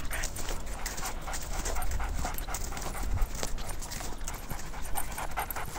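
A dog panting in short, uneven breaths.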